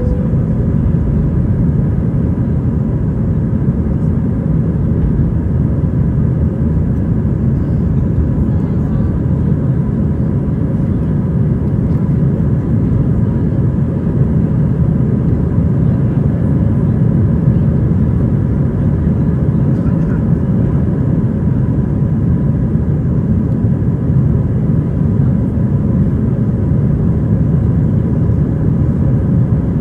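Airbus A320 cabin noise during the climb after takeoff: the IAE V2500 engines and the airflow make a steady, loud low rumble, with a faint steady whine over it.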